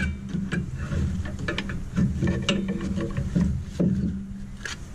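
Rear brake caliper of a Ford F-150 being pried off with a flathead screwdriver: scattered metallic clicks, knocks and scrapes at irregular intervals, over a steady low hum.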